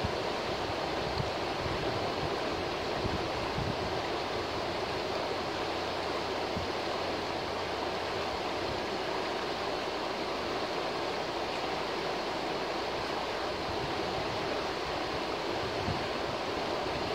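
A shallow forest river rushing over a rocky bed in a riffle: a steady, even rush of water.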